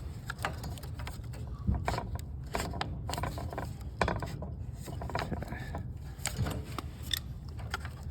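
Irregular light clicks and knocks of hand work on a small engine's ignition coil and flywheel as the coil is gapped, over a low steady hum.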